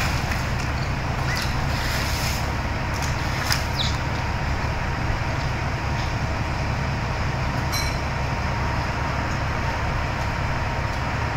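Steady low rumble of a large engine running, with a few short high squeaks and clicks in the first four seconds and one more click about eight seconds in.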